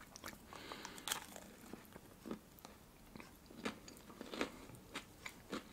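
A person biting into a pastry tartlet filled with cream cheese, salmon and a cucumber slice, with a sharp bite about a second in, then quiet chewing with scattered small clicks.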